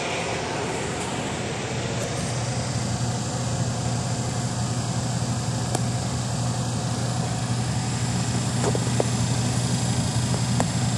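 Sharp twin-tub washing machine running, a steady motor hum with a low mains-frequency drone while its 5-minute timer winds down, with a few faint clicks.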